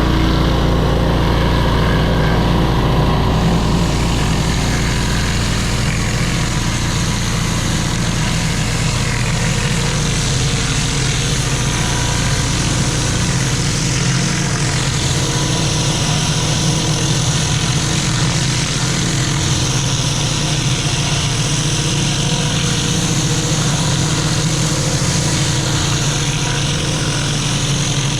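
Engine-driven pressure washer running steadily, with the hiss of its water jet on the patio rising and falling in waves as the spray sweeps across the slabs.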